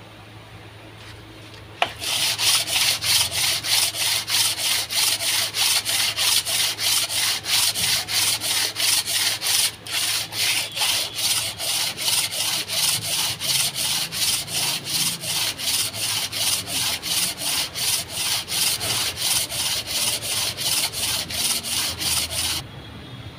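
Abrasive paper on a hand-held sanding block rubbed back and forth over an engine block's deck surface, cleaning the head-gasket face. The scraping strokes come evenly, about two and a half a second. They start about two seconds in and stop shortly before the end.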